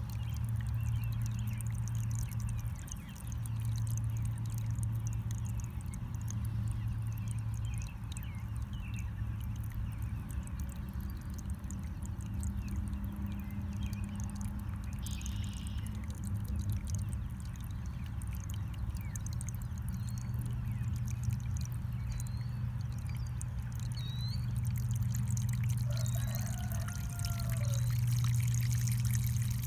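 Water running through a tube into the base of a large plastic vacuum chicken waterer as it fills, a steady pouring and trickling with a low hum underneath.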